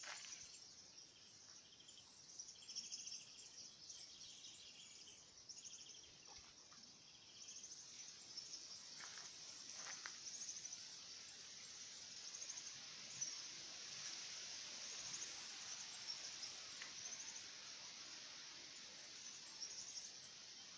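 Faint, steady high-pitched insect trilling, a rapid pulsing chorus of field insects, with a second, lower trill joining for the first several seconds.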